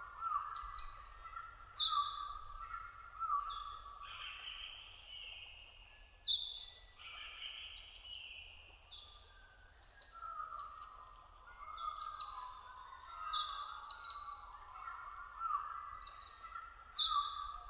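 Several birds singing at once, short chirping calls overlapping and repeating every second or two.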